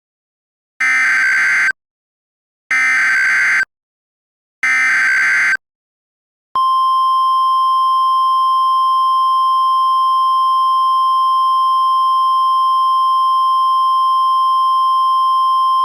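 Emergency Alert System header: three short bursts of screeching digital SAME data, each about a second long, then a long single-pitch weather-radio attention tone that holds steady for about ten seconds. Together they signal that an emergency message is about to be read.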